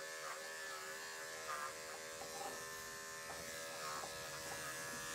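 Electric dog grooming clipper running with a steady buzz as it shaves a cocker spaniel's coat, its pitch dipping slightly a few times as the blade works through the hair.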